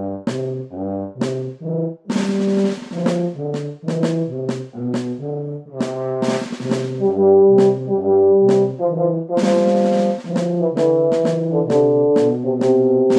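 Instrumental score music: a low bass line stepping from note to note about twice a second under chords with crisp attacks, getting louder about halfway through.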